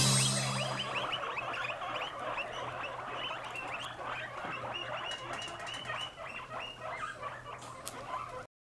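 Several guinea pigs wheeking: many short, rising squeals overlapping one another, the begging call they make when they expect a treat. A ringing tone fades away in the first second, and the calls cut off suddenly near the end.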